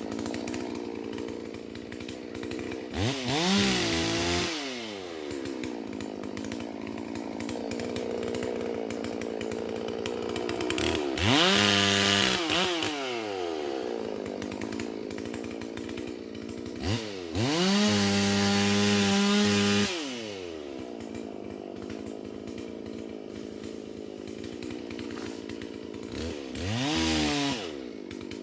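Holzfforma G444 chainsaw, a clone of the Stihl MS 440 with a two-stroke engine, idling and revved up four times, each time rising in pitch and dropping back to idle. The third rev is held at high speed for about two seconds.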